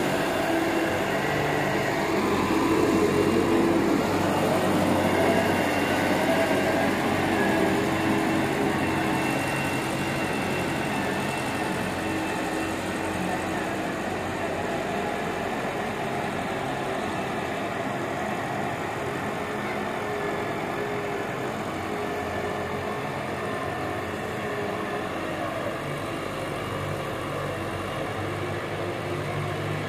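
John Deere 595D wheeled excavator's diesel engine running continuously, its pitch wavering up and down as it works. The sound is loudest in the first several seconds and slowly grows fainter.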